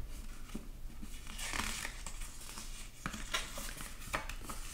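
Paper page of a small hardcover book being turned by hand: a soft papery rustle, loudest about one and a half seconds in, with scattered light clicks of fingers on the paper.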